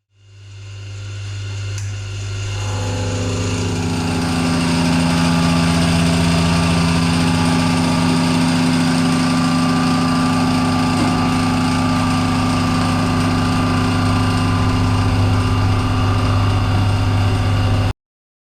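Milling machine running: its motor starts and spins up over the first few seconds, then runs steadily with a strong low hum. The sound cuts off suddenly near the end.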